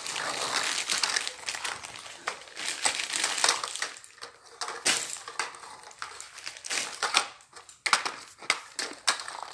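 Clear plastic packaging crinkling as a child's sweater is handled and pulled out of its wrapper, crackling on and off with short pauses.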